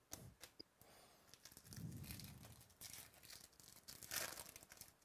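Foil wrapper of a Topps Chrome baseball card pack being torn open and crinkled, the loudest tear about four seconds in, after faint rustling and clicks of cards being handled.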